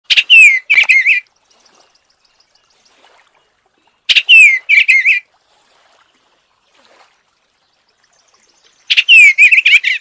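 Eastern bluebird song: three short warbled phrases of slurred, falling notes, each about a second long, coming about every four to five seconds.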